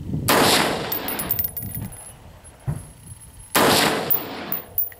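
Two rifle shots from a .223 AR-15, about three seconds apart, heard from downrange near the target; each sharp report trails off in echo.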